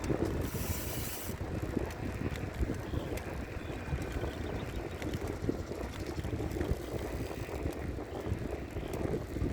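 Bicycle ride on a road: a steady low rumble of tyres and wind buffeting the microphone, with a brief hiss about half a second in.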